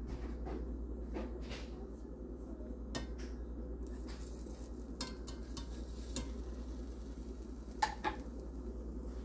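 Spatula knocking and scraping against a nonstick frying pan of frying pancakes: a few separate clicks, the loudest two in quick succession near the end, over a steady low hum.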